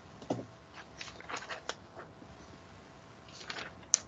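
Faint scattered clicks and rustles over quiet room tone, with a sharper click near the end.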